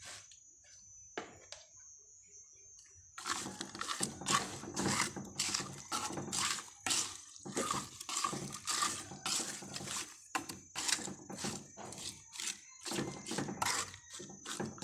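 Hands working marinade into pieces of fish in a bowl: a few light clicks, then from about three seconds in, quick repeated wet, squelching strokes, several a second. A faint steady high whine sits underneath.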